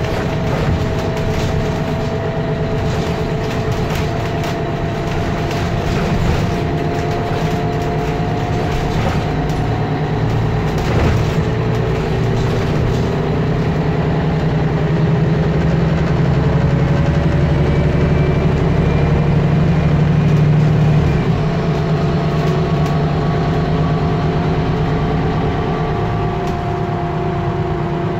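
Mercedes-Benz O530G Citaro articulated bus driving along, heard from on board: a steady engine drone with tones that slowly rise and fall in pitch. The low rumble grows louder through the middle and drops away suddenly about three-quarters of the way through.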